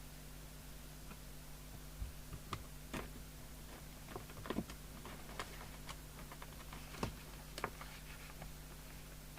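Scattered light clicks and taps, about a dozen between two and eight seconds in, from handling things on a workbench, over a steady low electrical hum.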